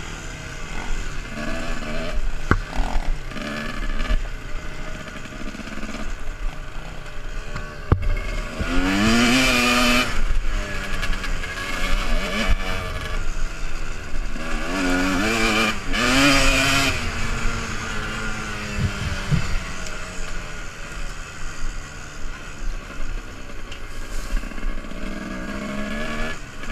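Dirt bike engine running under way, heard close up from a helmet-mounted camera, its revs climbing sharply twice, about a third of the way in and again just past halfway, between steadier stretches.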